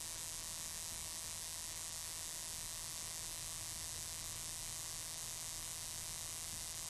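Steady electrical hiss with a faint, even buzz underneath: noise in the mixer's audio chain that the owner traces to the headphone signal and suspects may come from the computer's sound card.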